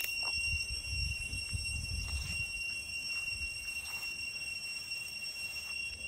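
Cicadas calling in a steady, high-pitched drone, several pitches held at once, with a low rumble during the first couple of seconds.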